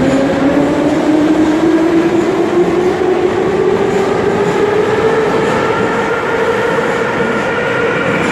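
Ezh3/Em-508T metro train pulling out and accelerating. Its traction drive whines in a stack of tones that rises steadily in pitch, over the rumble of the moving cars.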